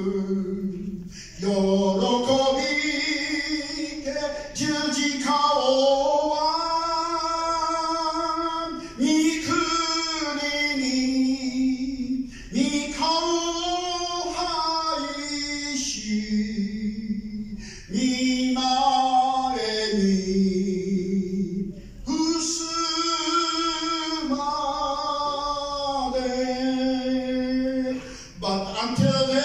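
Slow unaccompanied singing of a hymn, in long held notes phrase after phrase, with short breaths between phrases.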